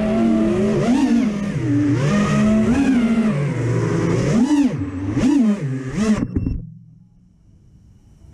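6S FPV racing quadcopter's brushless motors (1922KV Hyperlite) and propellers whining, heard from the camera on the frame, the pitch swooping up and down with the throttle. About six and a half seconds in the motors stop as the quad sets down on the ground.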